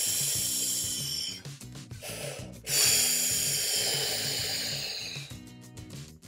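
A person blowing hard twice in long, breathy huffs, each one tailing off, voicing the Big Bad Wolf trying to blow the toy brick house down. Soft music plays underneath.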